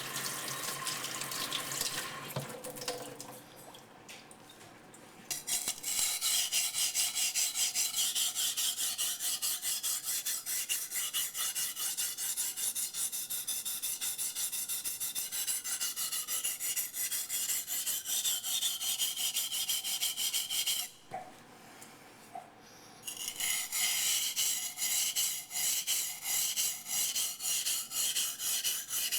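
Becker BK9 knife blade stroked back and forth on a coarse 180-grit sharpening waterstone: a rhythmic, gritty scraping in quick even strokes, stopping for about two seconds two-thirds through and then starting again. The first few seconds hold softer, irregular scraping before the steady strokes begin.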